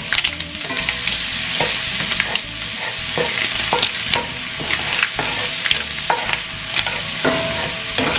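Shrimp sizzling in butter in a cast-iron skillet while a wooden spoon stirs and scrapes through the pan, with many short knocks of the spoon against the iron.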